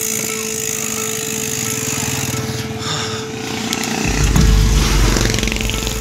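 Bicycle rattling fast over a rough trail, with wind buffeting the microphone as a heavy low rumble from about four seconds in.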